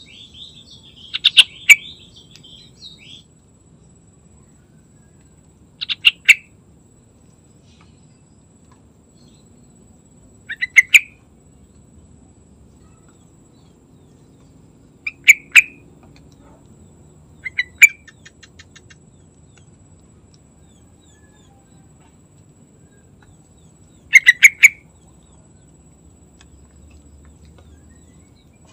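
Yellow-vented bulbul singing: six short, loud phrases a few seconds apart, the first with softer twittering around it.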